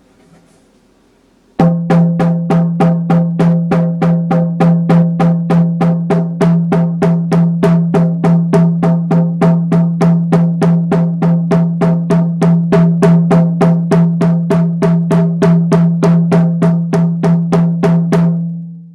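17-inch cowhide hand drum on a cedar frame, struck in a steady, even beat of about three strokes a second, each stroke giving a deep ringing tone. The beat starts about a second and a half in and stops shortly before the end, the last stroke ringing out.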